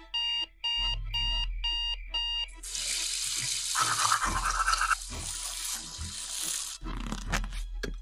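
An alarm beeping in short evenly spaced pulses for the first two and a half seconds, then toothbrush scrubbing on teeth, a dense hiss lasting about four seconds and the loudest part, then a clock ticking near the end.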